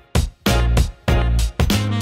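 Background music with a steady beat of drum hits over a bass line.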